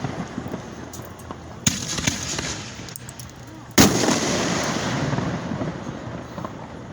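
Consumer fireworks going off: two sharp bangs about two seconds apart, the second the loudest, each trailing off in a long fading tail.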